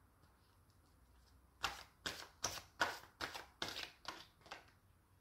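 A tarot deck being shuffled by hand: about eight quick rasping strokes of cards sliding against each other, starting a second and a half in.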